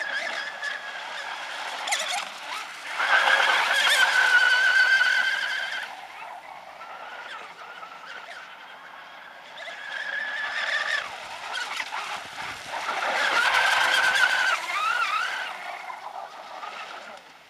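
Six-cell electric RC catamaran racing boat at full speed: a high-pitched motor whine over hull and spray noise, swelling loud twice as it passes close, about three to six seconds in and again around thirteen to fifteen seconds. The pitch wavers and slides as it turns after the second pass, then the sound fades as the boat runs off.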